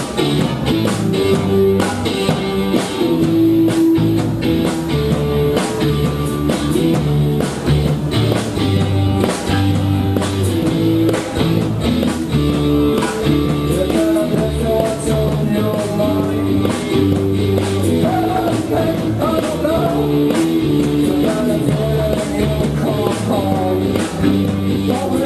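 A rock band playing live: electric guitars, bass guitar and a drum kit keeping a steady beat, with a lead vocal over the second half.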